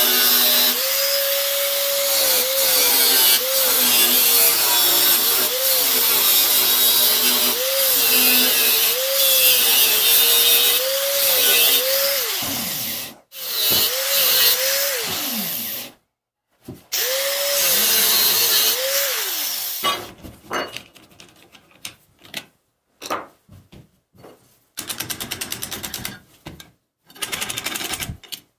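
Angle grinder with a cutoff disc cutting through a steel circular saw blade, its motor whine dipping in pitch and recovering about every second and a half as it bogs in the cut. The sound breaks off abruptly several times, and in the last seconds there are only short, broken bursts.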